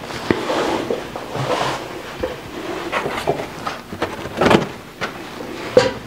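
Handling noise: scattered clicks, knocks and short scrapes of objects being picked up and moved about, with the loudest knock about four and a half seconds in and another sharp one near the end.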